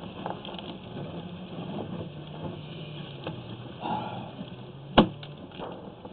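An engine or motor runs steadily with a low hum. A single sharp knock comes about five seconds in, with a few fainter ticks around it.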